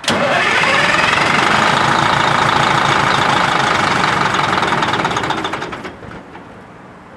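Detroit Diesel 8V92 two-stroke V8 diesel running loud and steady, coming in abruptly, then winding down and stopping about six seconds in.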